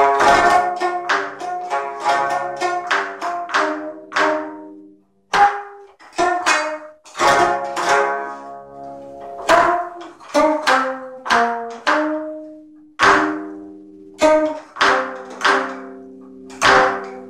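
Solo geomungo, the Korean fretted zither, its strings struck in sharp, irregularly spaced strokes, each with a woody knock. The notes ring on after each stroke, and some slide down in pitch as the left hand presses on the strings.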